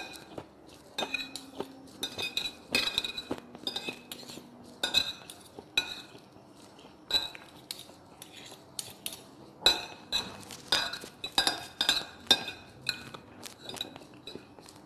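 Metal fork and spoon clinking and scraping against a ceramic plate in irregular strokes while gathering leftover rice, each contact ringing briefly.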